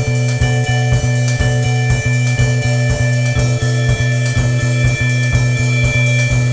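Instrumental background music: a steady drum beat of about two hits a second over a held low bass note and sustained higher tones.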